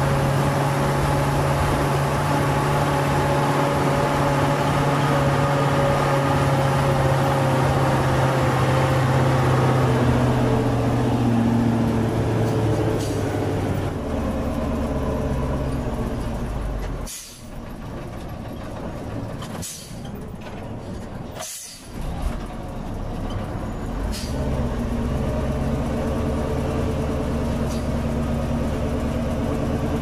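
Nissan V8 6x6 logging truck's engine heard from inside the cab, running steadily, then dropping in pitch as the truck slows about ten seconds in. Midway the engine sound falls away for a few seconds, broken by three short hisses, then it runs steadily again.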